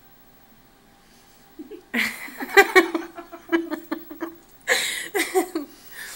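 Laughter in two bouts of short, broken bursts, the first starting about a second and a half in and the second near five seconds, after a quiet start.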